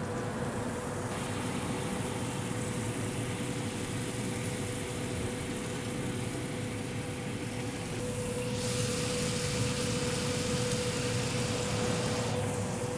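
Steady hiss and hum of a lit grill, with one constant tone throughout. A brighter hiss joins about eight seconds in and fades near the end.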